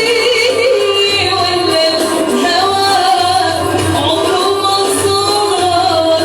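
A woman singing a Moroccan-style song with instrumental accompaniment; her voice glides and wavers through ornamented phrases over a steady backing.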